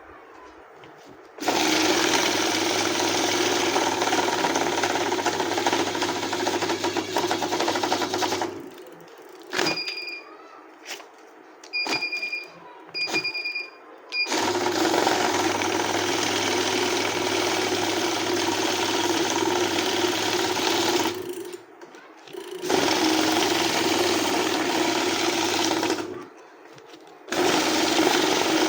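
Electric banknote counting machine running in long stretches of several seconds, feeding notes through with a steady rapid whir and stopping briefly between batches. Near the middle there are a few short starts and stops with several brief electronic beeps.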